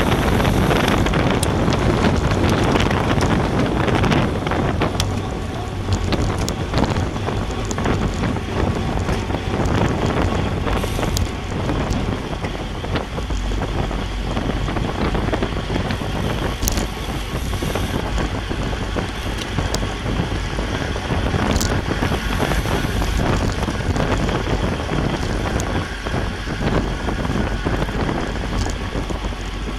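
Wind rushing over the microphone of a bicycle-mounted action camera at racing speed, with road noise from the tyres, steady throughout. A few sharp clicks stand out.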